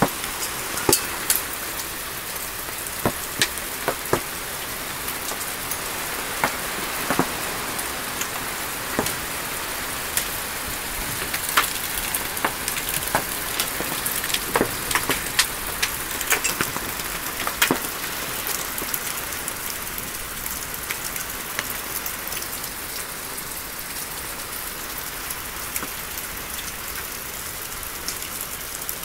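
Hailstorm with heavy rain: a steady hiss of falling rain with scattered sharp cracks of hailstones striking, the strikes thinning out after about eighteen seconds.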